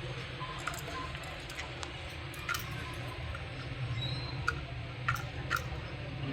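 Caged budgerigars: scattered small clicks and ticks with a few brief, faint chirps, over a steady low hum.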